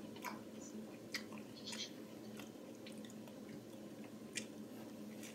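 Close-up chewing of juicy fresh pineapple: faint wet, squishy mouth sounds with scattered small clicks.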